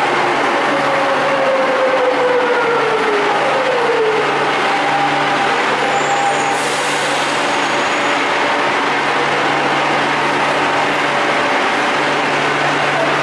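Madrid Metro Serie 8000 electric train braking into a station: its traction motor whine falls in pitch during the first few seconds over a steady low hum, and a hiss of air comes about six and a half seconds in as the train comes to a stop.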